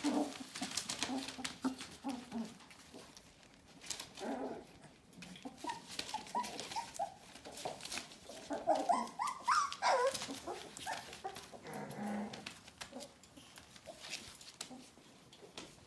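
Four-week-old Border Collie puppies whining and squeaking in short high rising-and-falling calls, thickest in the middle, over the rustle and crinkle of newspaper under their paws.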